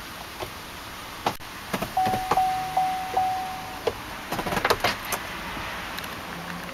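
Switches and stalks on a 2008 Chevrolet Tahoe's dash and steering column being clicked. About two seconds in, a steady electronic beep sounds for roughly two seconds, with regular ticks about two and a half times a second. A quick run of clicks follows near the end.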